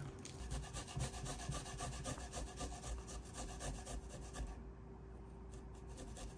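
A garlic clove rasped back and forth on a handheld rasp grater standing on a wooden cutting board, in rapid, even strokes that ease off about four and a half seconds in.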